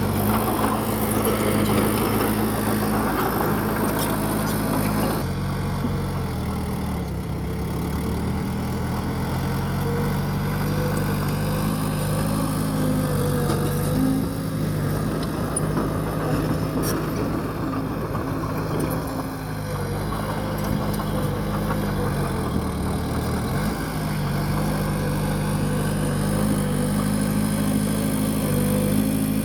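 Bulldozer's diesel engine running steadily, its pitch dropping and climbing again several times as the revs change with the work.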